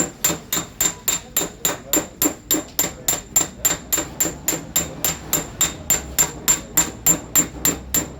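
Hammer tapping on a car fender's sheet metal during paintless dent repair: quick, even taps, about four a second, working the panel level without filler.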